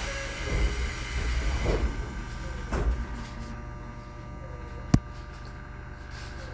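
The sliding passenger doors of a Tobu 20400 series train car close, with rumbling thuds over the first few seconds. A single sharp click comes about five seconds in, over the car's steady hum while it stands ready to depart.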